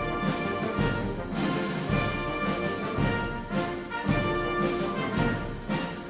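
Orchestral background music with a steady beat, about two beats a second.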